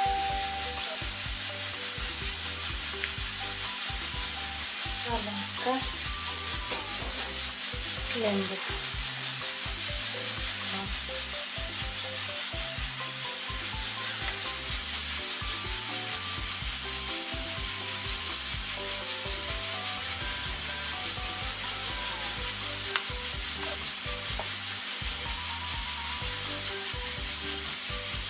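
Background music with a steady beat and a simple melody under a loud constant hiss.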